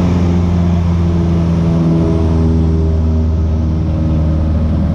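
The piston engine and propeller of a single-engine light aircraft, heard inside the cabin as a loud, steady drone. A few higher tones join it in the middle as the aircraft manoeuvres.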